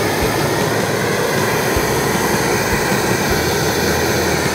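Hand-held propane burner torch blasting its flame into a kettle grill full of charcoal to light it: a loud, steady rushing hiss, with a few short low knocks.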